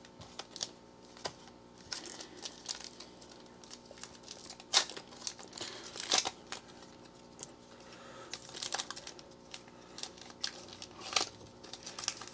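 Foil wrapper of a trading card pack crinkling and tearing as it is pulled open by hand, in irregular sharp crackles, the loudest about five and six seconds in and again near the end.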